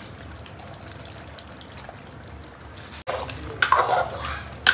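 Curry cooking gently in a karahi, a faint steady bubbling as yogurt is poured in from a plastic bag. About three seconds in a steel ladle starts stirring, scraping against the pan, with the loudest scrapes just over three and a half seconds in and at the end.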